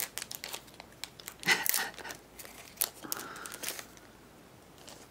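Pokémon booster pack's foil wrapper crinkling and being torn open, in short rustling rips with the loudest about one and a half seconds in.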